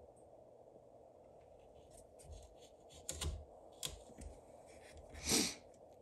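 Small knife blade cutting and scraping the wood of a carved duck lure body: scattered soft clicks and scrapes, with one louder rasp about five seconds in.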